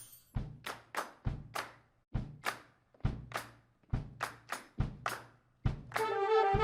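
A drum kit plays a steady groove on its own, with bass drum thumps about once a second and lighter snare and cymbal hits between them. Near the end a brass section comes in with held chords.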